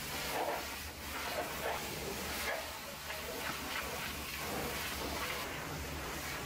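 Pressure-washer jet hissing as it sprays water against the truck's cab panels, with a steady low hum underneath.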